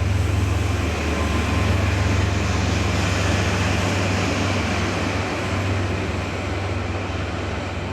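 HST test train running through with a heavy, steady low rumble from its diesel power car, over wheel-on-rail noise, easing off slightly toward the end.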